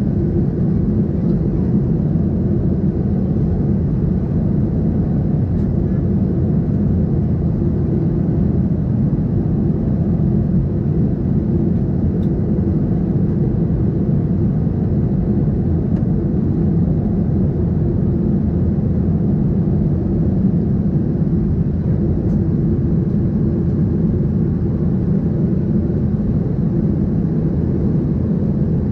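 Steady low cabin roar of a Boeing 737-700 in flight, its CFM56 jet engines and the rushing airflow heard from a window seat by the wing.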